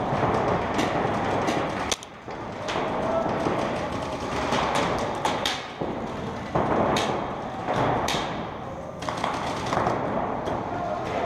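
Paintball markers firing scattered, irregular sharp pops over a dense rushing noise of movement and wind on a body-worn action camera.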